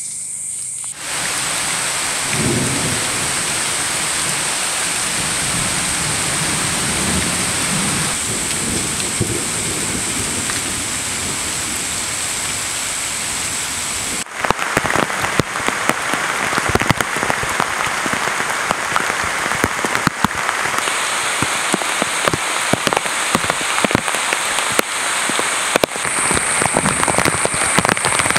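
Rain falling on rainforest foliage: a steady hiss with some low rumble in the first half. About halfway through it becomes closer and louder, with many separate drops pattering on leaves and ground.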